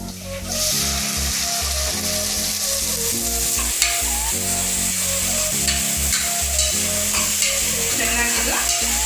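Sprouted horse gram hitting hot oil and onions in a pressure cooker: a sizzle starts suddenly about half a second in and keeps going as the gram fries. A metal spoon stirs and scrapes against the pot, with one sharp clink.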